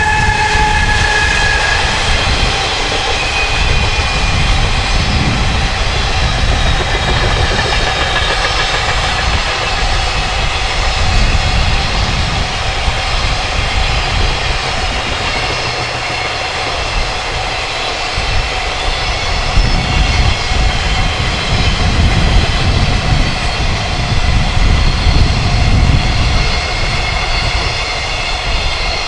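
A JR Freight train hauled by an electric locomotive passing close by, its wagons running over the rails in a steady, continuous rumble. Strong wind gusts buffet the microphone throughout.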